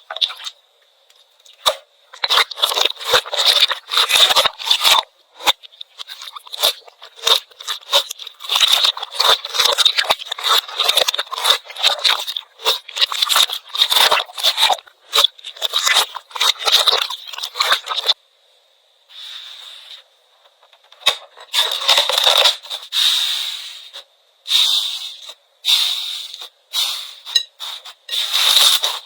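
Slime being squeezed, pressed and pulled by hand, giving rapid crackling, popping clicks and sticky tearing sounds. It goes quieter for a few seconds past the middle before the crackling resumes.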